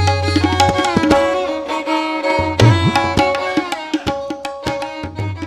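Ringtone music: a held, pitched melody over quick, irregular drum strikes, growing quieter through to the end.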